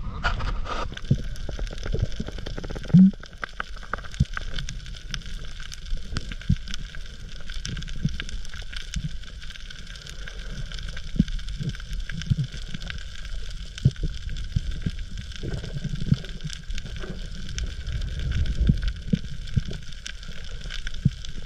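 Underwater reef sound heard through an action camera's housing: a steady low rumble with constant crackling and clicking. A brief loud low knock about three seconds in.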